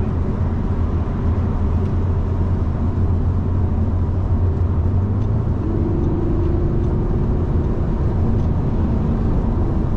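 Steady road and engine drone heard inside a moving Audi car's cabin at motorway speed, with a faint steady hum joining in from about six to eight seconds in.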